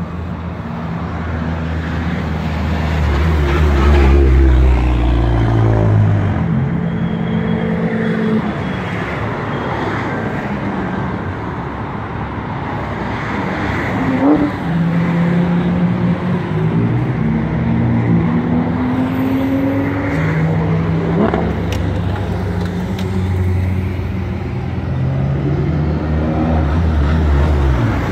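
Car engines running and pulling away, their pitch rising and falling as the cars move off and go past. Near the end a Volkswagen Golf drives past close by and gets louder.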